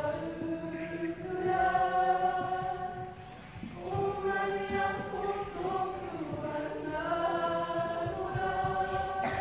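A school kapa haka group singing a Māori song together in unison, young voices holding long notes, with a short breath between phrases about three and a half seconds in.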